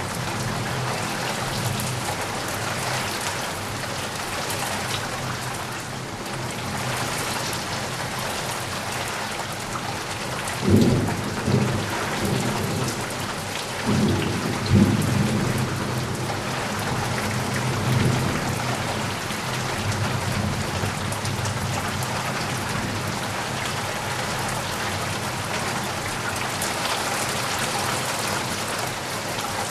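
Steady heavy rain falling, with a rolling peal of thunder about ten seconds in that rumbles on in two loud surges for several seconds before fading back under the rain.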